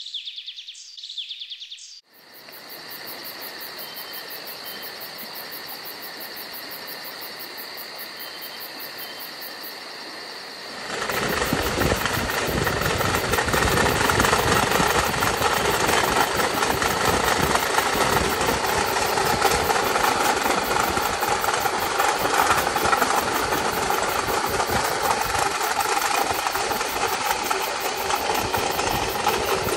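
Pedal rail bike's steel wheels rolling along the railway track: a steady rumble and rattle, moderate at first and much louder from about eleven seconds in.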